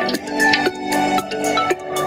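Background music: a light tune of short struck notes at a steady pace, about two a second.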